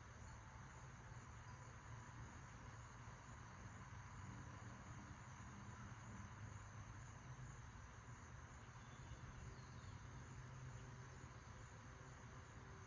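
Near silence: faint, steady background noise with a low hum and a thin, steady high-pitched band, and no gusts standing out.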